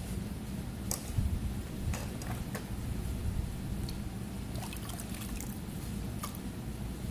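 Electric potter's wheel running with a steady low hum while wet clay turns on it, with scattered small wet squishes and clicks from hands and water working the spinning bowl, a cluster of them in the second half.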